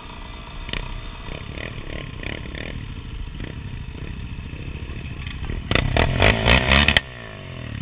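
Dirt bike engine running at low speed with clattering ticks; about six seconds in, an engine revs loudly for a little over a second, its pitch rising and falling, then cuts off sharply.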